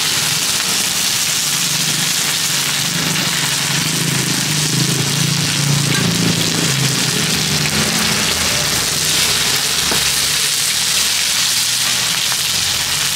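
Hoy tod, egg batter with mussels, sizzling steadily in hot oil on a flat iron griddle pan, with a few light scrapes and taps of a metal spatula against the pan.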